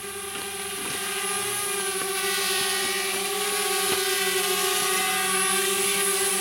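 Small quadcopter drone's propellers whining at a steady pitch as it hovers and flies close by, growing louder over the first couple of seconds.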